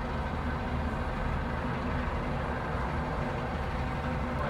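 A heavy engine running steadily, a low, even drone with a few steady tones above it.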